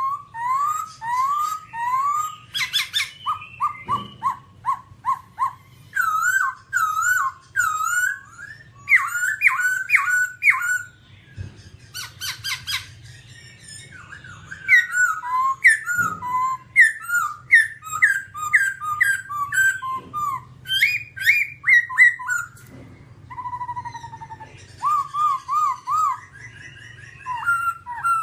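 Black-throated laughingthrush singing: loud runs of quickly repeated, slurred whistled notes, phrase after phrase with short pauses between, over a faint low hum.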